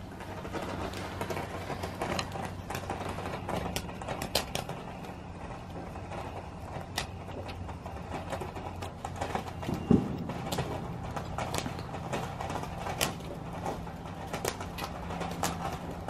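Ground fountain firework burning: a steady spray with many scattered sharp crackles, and one louder pop about ten seconds in.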